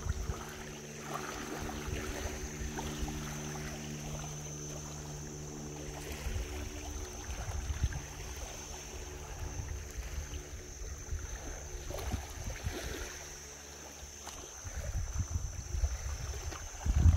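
Small waves lapping on a shallow pebble beach, with wind rumbling on the microphone, stronger near the end. A faint steady drone sits underneath for the first half and then fades out.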